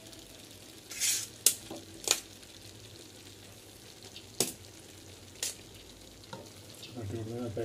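Cooked rice being tipped from a steel bowl and spread with a metal spoon over chicken masala in a large pot, layering a biryani for dum cooking. Over a faint steady hiss there is a handful of sharp, spaced-out clinks and scrapes as the metal spoon and bowl strike the pot.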